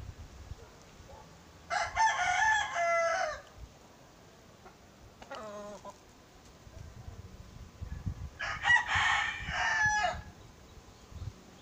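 Rooster crowing twice, each crow about a second and a half long and a few seconds apart, with a shorter, fainter call between them.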